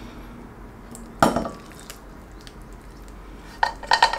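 Noodles being tipped from a pot into a ceramic bowl, with one sharp clink against the bowl about a second in and a few faint taps. Near the end, background music with a quick tapping beat comes in.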